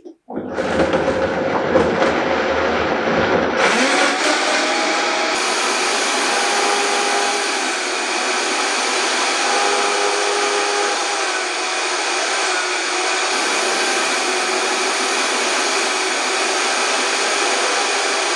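Vitamix E310 high-power blender switched on and blending whole fruit, avocado and greens into a smoothie. A low rumble of chunks being chopped sounds for the first few seconds, then it settles into an even, loud whir as the mix turns smooth.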